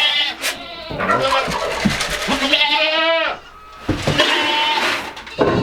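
Female goats (does) bleating, several calls in a row, the loudest one about half-way through.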